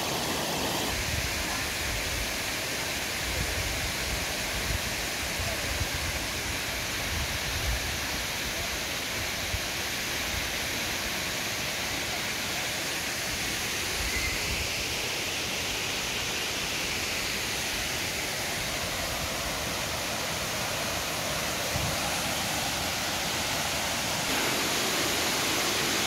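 Steady rushing of water from a river waterfall cascading over rock ledges into a pool, an even roar of noise. It grows louder near the end as the rapids beside the footbridge come close.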